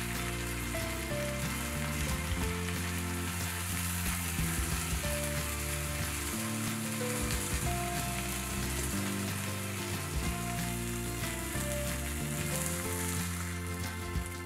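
A tortilla wrap frying in a cast iron skillet: a steady sizzle throughout, with background music playing under it.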